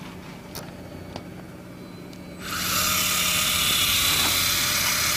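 Electric fishing reel's motor starting up about two and a half seconds in and winding line in with a steady whirring hiss, over the low steady hum of the boat's engine.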